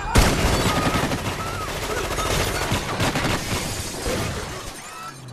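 Heavy automatic gunfire breaks out suddenly: many rapid, overlapping shots for about four seconds, thinning out and dying down near the end.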